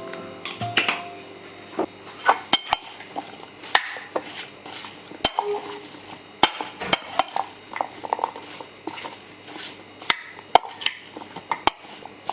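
Dishes and metal utensils clinking and knocking in irregular taps, a few with a short ring.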